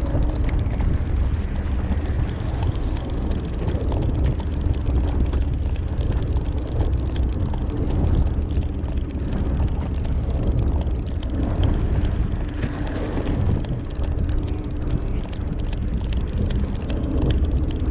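Steady low drone of a fishing boat's engine running, with small clicks from hands handling a fishing reel and line.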